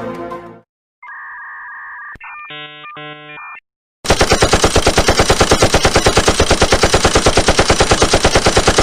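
A brief music tail fades out, then a steady electronic tone and a short choppy pattern of beeping tones. About four seconds in, a machine-gun sound effect starts: rapid, even automatic fire at about ten shots a second, the loudest part.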